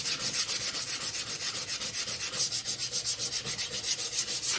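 Sandpaper rubbed by hand over a wooden stair tread in quick, even back-and-forth strokes, sanding the excess hardened knot filler flush after a nail-hole repair.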